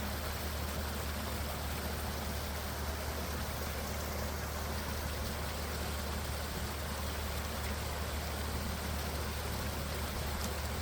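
Small stream running with a steady rush of flowing water.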